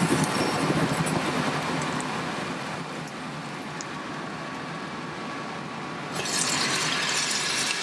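A steady hiss from the hot Instant Pot inner pot after sautéing, then broth poured from a glass measuring jug into the hot pot about six seconds in, splashing and hissing as it deglazes the bottom.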